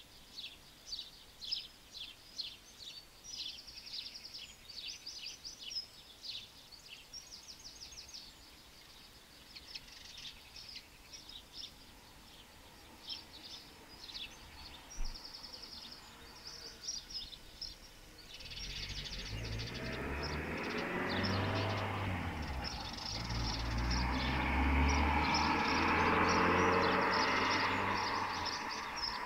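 Small songbirds chirping, with several short rapid trills. About two-thirds of the way in, a low engine rumble with a broad rushing noise swells up, grows loudest near the end and drowns out the birds.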